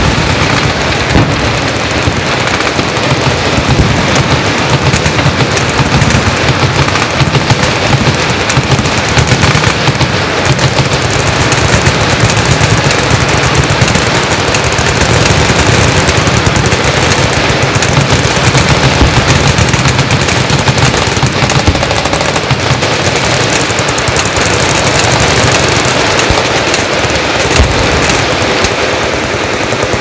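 Many machine guns firing full-auto at once: a continuous, unbroken clatter of overlapping bursts with no pauses.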